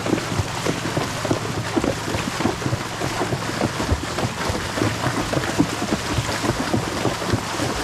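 Water splashing in quick irregular strokes as a horse wades through a flooded river, over a steady rush of water and wind noise on the microphone.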